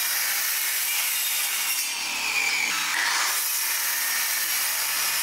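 Electric miter saw running and cutting through a block of wood: a steady high-pitched cutting noise with a blade whine that rises and falls as it bites.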